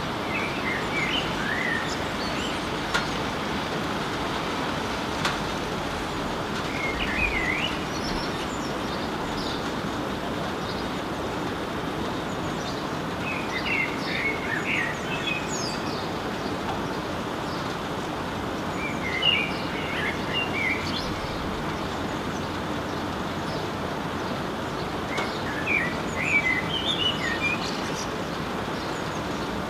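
Male common blackbird singing: five separate phrases of fluted, warbling whistles, each ending in a higher twitter, about six seconds apart, over a steady hiss of rain.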